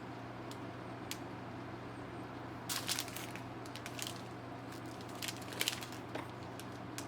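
Small plastic bags of diamond painting drills being handled: a few brief crinkles and clicks, most around three seconds in, over a steady low fan hum.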